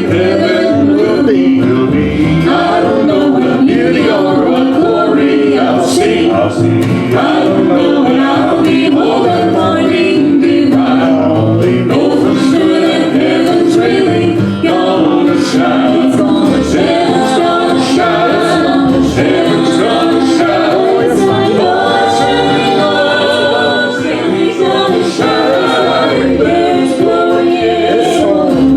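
Southern gospel group singing in close harmony, several voices held together over a steady strummed accompaniment.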